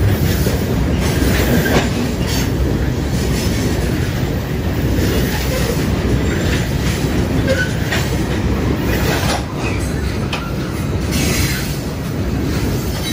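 CSX coal cars rolling past close by: a steady low rumble of steel wheels on rail. Irregular clacks come over the rail joints, and a few brief wheel squeaks rise above the rumble.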